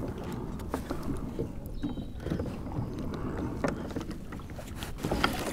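Wind buffeting the microphone aboard a plastic sit-on-top kayak, with scattered light clicks and knocks from gear being handled.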